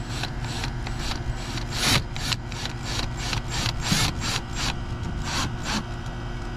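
Rhythmic rasping scrapes, about four a second, as a hole is worked into a kayak's plastic hatch latch for a mounting screw.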